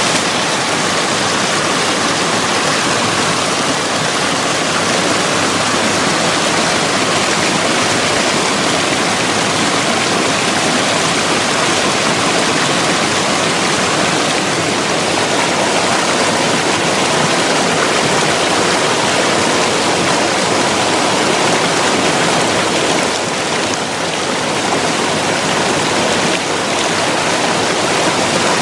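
Lower Tahquamenon Falls' cascade pouring over rock ledges close by: loud, steady rushing and splashing of whitewater.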